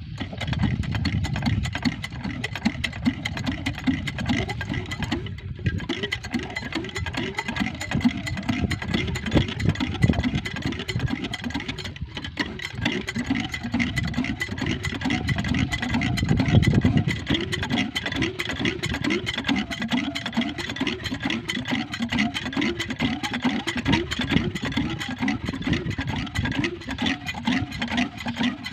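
Chinese-made small single-cylinder diesel engine running steadily with a rapid, even chug, driving a centrifugal irrigation water pump.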